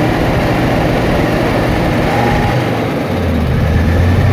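Toyota Land Cruiser diesel engine running with the throttle opened, a steady mechanical clatter; about three seconds in a deeper low hum comes up and the sound gets a little louder. The engine is one that puffs black and white smoke, the symptom that has brought it in for an injection-pump rebuild.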